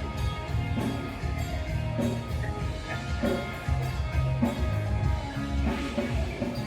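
Loud music with drums, bass and guitar over a steady beat.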